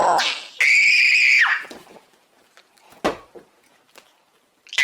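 High-pitched screech from a 'G Major' pitch-shifted audio edit: a short burst, then a held shrill tone for about a second that drops away at its end. After a quiet gap with a single click, another screech starts near the end.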